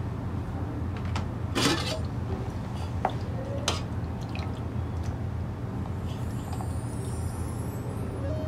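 Food being served with a steel ladle and spoons: a few sharp clinks and scrapes of metal on a steel pot and plates in the first four seconds, the loudest just under two seconds in, along with the slop of dal being ladled. A steady low hum runs underneath.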